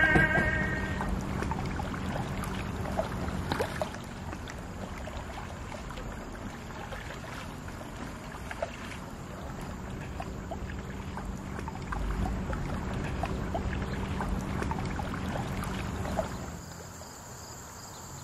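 Paddles dipping and splashing in lake water as kayaks and canoes move along, with a faint low hum underneath. About sixteen seconds in, this gives way to steady cricket chirping.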